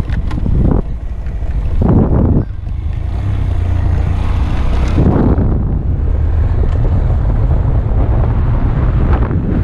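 Wind buffeting the built-in microphone of a helmet-mounted camera over the steady low running of a Honda Grom's small single-cylinder engine, with louder gusts about two and five seconds in.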